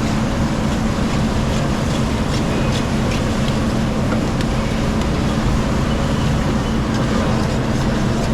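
A loud, steady droning hum with a rushing noise, unchanging throughout, and a few faint light clicks.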